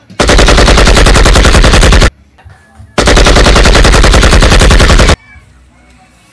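Automatic gunfire: two long bursts of rapid shots, each about two seconds, with a pause of about a second between them.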